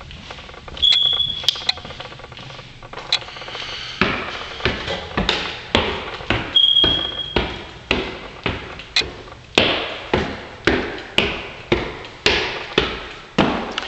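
Footsteps climbing a flight of bare wooden stairs: a steady run of knocks about every half to two-thirds of a second, starting about four seconds in.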